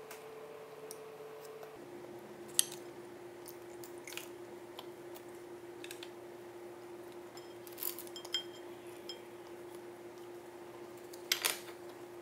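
Scattered light clicks and clacks of wooden skewers and chopsticks against ceramic bowls and plates. The sharpest comes about a third of the way in and a small cluster comes near the end, over a faint steady hum.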